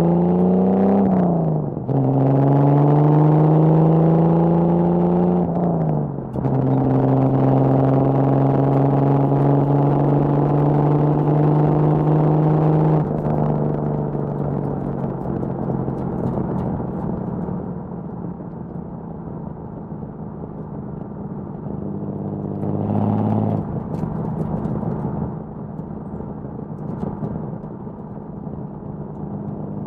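1979 Datsun 280ZX's L28 inline-six on triple Weber carburettors, through an HKS Hi-Power exhaust, accelerating through the gears: the revs climb and drop at upshifts about a second in and again about six seconds in, then climb once more. A little before halfway the throttle is lifted and the engine settles to a quieter, steady lower drone, with a short rise in revs about three quarters of the way through.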